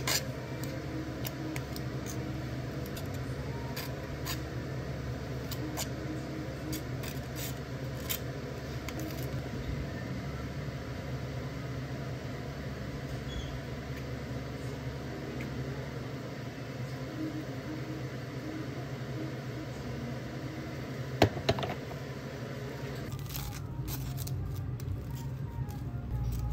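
Steady low hum with scattered light clicks and taps, and two sharp knocks close together about five seconds before the end.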